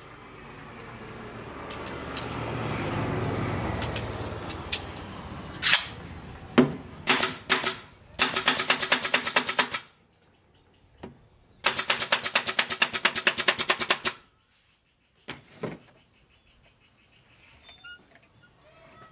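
Pneumatic nail gun firing into board joints: a few single shots, then two rapid runs of about ten shots a second, each lasting two to three seconds. The first few seconds hold a rush of noise that swells and fades.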